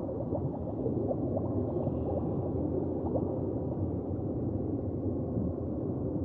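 Low underwater ambience: a steady, muffled rumble with occasional gurgling bubbles.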